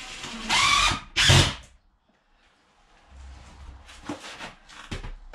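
Cordless drill driving a screw through a door hinge into the timber frame, in two short bursts in the first couple of seconds, the motor whine rising in pitch in the second. A few quieter knocks follow later.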